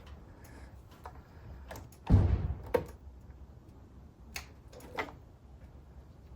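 A single dull thump about two seconds in, among a few light clicks and knocks.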